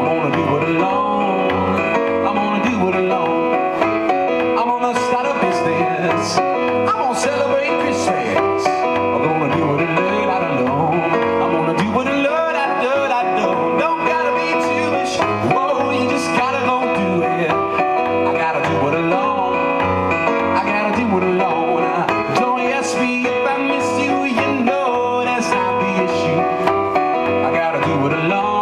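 Roland RD-700NX digital stage piano played in a steady rhythm, with a man singing a pop song over it through a microphone.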